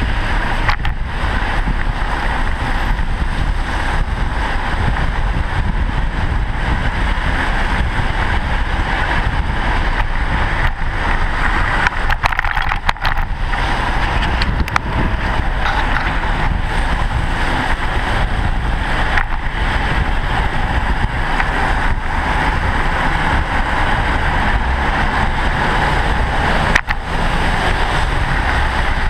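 Steady rush of wind on the microphone of a camera riding along on a bicycle, with the noise of car traffic on the road alongside.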